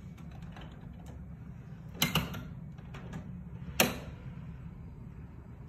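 Two sharp clicks about two seconds apart, over a steady low hum: the control knob or switch of a window-type air conditioner being worked, and the unit stays off with no power.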